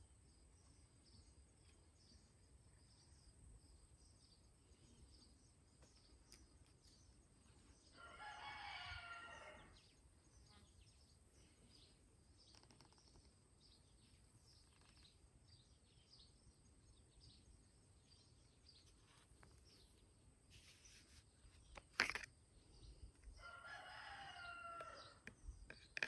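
A rooster crowing twice, about eight seconds in and again near the end, each crow lasting about two seconds, over faint high bird chirps. A sharp click, the loudest sound, comes shortly before the second crow.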